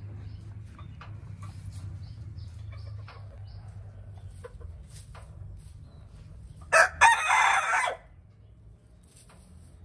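A rooster crows once, loudly, about seven seconds in: a short opening note, then a call of about a second. Before it, hens cluck softly and scratch in straw.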